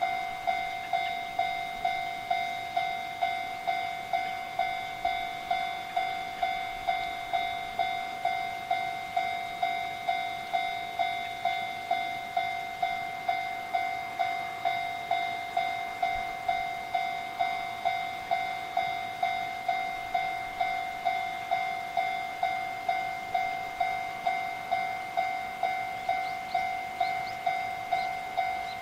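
Japanese railway level-crossing warning bell ringing steadily, an electronic ding repeating about twice a second, the signal that a train is approaching.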